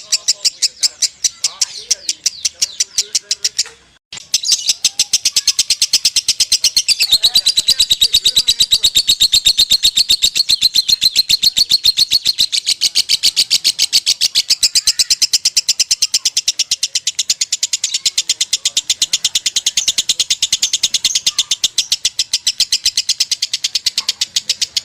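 Lovebird singing a long, unbroken, rapid chattering trill in the 'konslet' style. It stops briefly about four seconds in, then runs on.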